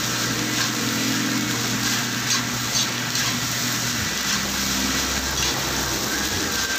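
Fried rice sizzling in a large aluminium wok as a long metal spatula scrapes and turns it several times, over a steady rushing noise.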